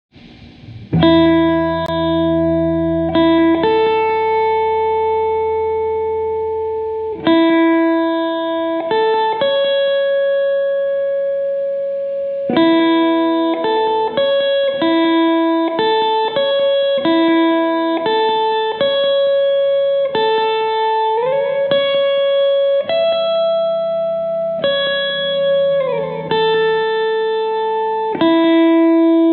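Slow instrumental melody on guitar: single long held notes, one after another, with a few notes sliding into the next, over a low sustained bass at the start and again later on.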